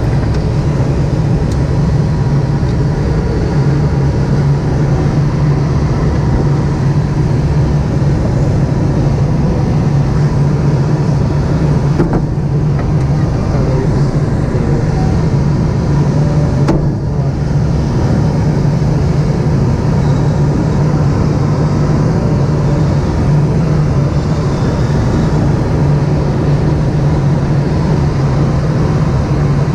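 Steady, loud drone of a tow plane's engine and propeller with rushing airflow, heard from inside a sailplane's cockpit during an aerotow climb.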